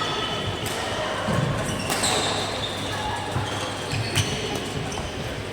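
Badminton rally on an indoor court: a few sharp racket hits on the shuttlecock, with short high squeaks of sneakers on the court floor.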